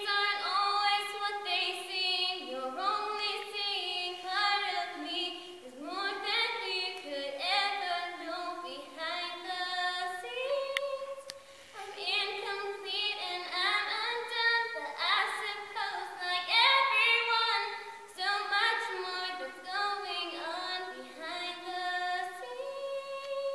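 A girl singing solo a cappella into a handheld microphone, in phrases of sliding and held notes with no accompaniment. There is a short break in the singing about halfway through.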